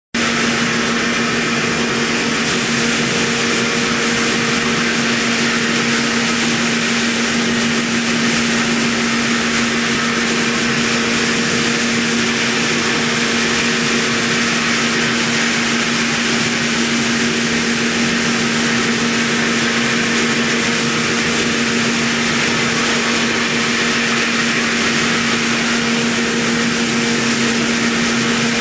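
Mikron VCE800 Pro X CNC milling machine running, its spindle turning a small end mill that cuts a shallow groove into a metal block. It makes a steady hum with a fainter higher tone above it, under an even hiss, unchanging throughout.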